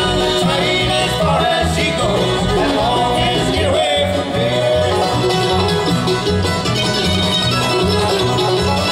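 Bluegrass band playing live on banjo, fiddle, mandolin, acoustic guitar and upright bass, with the bass keeping a steady beat.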